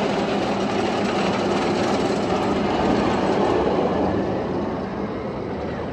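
A heavy engine running with a steady low hum, fading over the last second or so.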